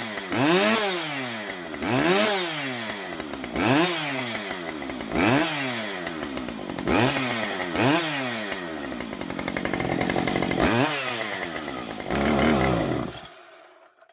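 Husqvarna 562 chainsaw's two-stroke engine being revved again and again, its pitch rising and falling about eight times, then switched off near the end.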